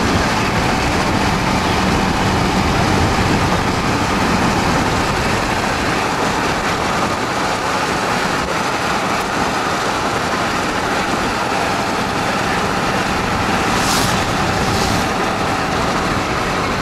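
Car driving at highway speed: steady, loud road and wind noise, with two brief hissing swells near the end.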